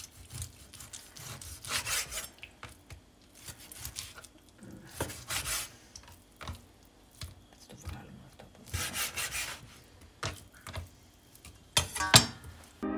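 Kitchen knife sawing through raw veal on a cutting board: a few long drawn strokes several seconds apart, with light knocks of the blade on the board and a short run of clicks near the end.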